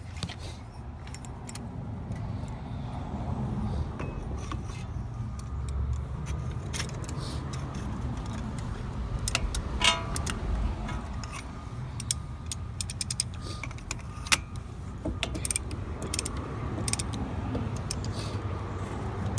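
Metal clicks and clinks from a brake caliper piston compressor tool being fitted and worked to push the caliper piston back, over a steady low rumble. The clicks are scattered and come thicker in the second half, with one sharp knock about two-thirds of the way in.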